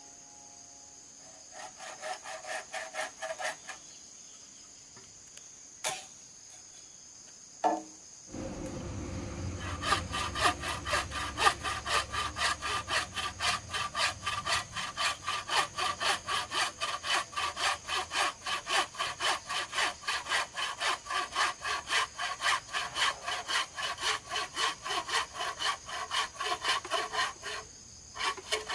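Hand saw cutting in steady back-and-forth strokes, about three a second: a short run a couple of seconds in, a single knock, then continuous sawing from about ten seconds in until just before the end.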